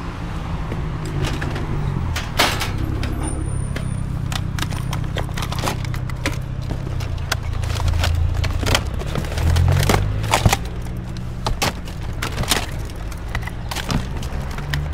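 Repeated knocks and clatters of plastic computer junk, such as old mice, being picked up and handled, over a steady low hum.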